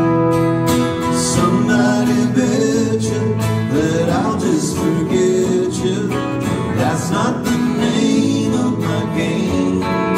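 Live country band: acoustic and electric guitars playing chords, with singing coming in about four seconds in.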